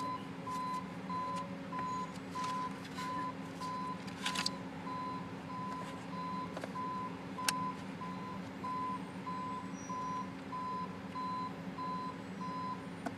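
A reversing vehicle's backup alarm beeping steadily, a single tone about two to three times a second, stopping near the end, over a steady low engine drone.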